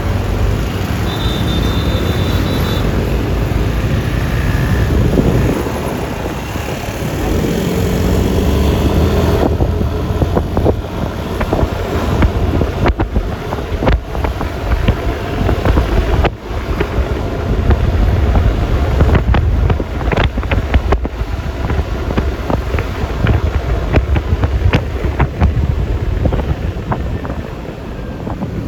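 Riding on a Yamaha Lexi LX 155 S scooter: wind buffeting the microphone over the scooter's single-cylinder engine and tyre and road noise, with crackling gusts that grow choppier about ten seconds in.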